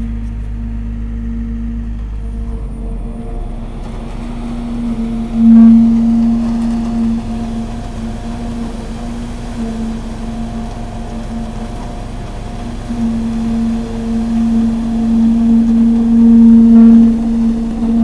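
Diesel engine of the concrete-pumping equipment running at high revs while concrete is pumped through the delivery hose. It is a steady drone that swells louder about five seconds in, and again from about 13 to 17 seconds.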